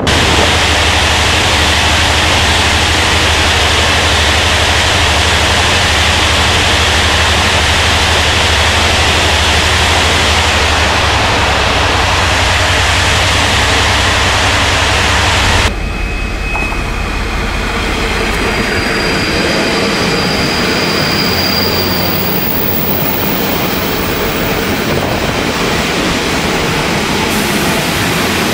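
Train running, heard from inside a TRA 40TPK32200 passenger coach: a steady rumble with a low hum. About sixteen seconds in the sound changes abruptly to a lighter rolling noise, with a thin high whine for a few seconds.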